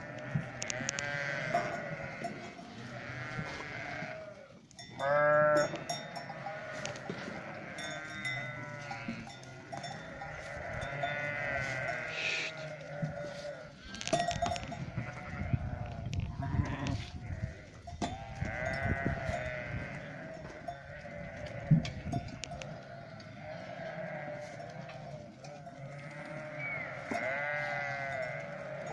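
A flock of sheep bleating, many calls overlapping one another without a break, with one loud close bleat about five seconds in.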